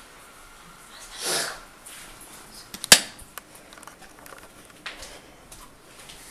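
Handling noise from a camera being carried and swung about. A short breathy rush comes about a second in, a sharp click near the middle is the loudest sound, and a few fainter ticks follow.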